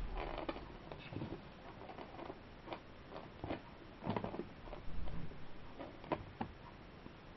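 Kittens playing on a carpet with a string toy: irregular light scuffling and pattering of paws, with a few sharper taps in the second half.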